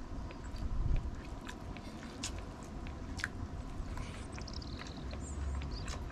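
A person eating: chewing, with scattered small clicks and taps.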